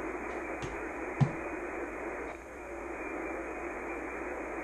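Shortwave band noise: steady hiss and static from an ICOM IC-7300 receiving upper sideband on the 20-meter band, with the answering station's signal faded down into the noise. A sharp click about a second in.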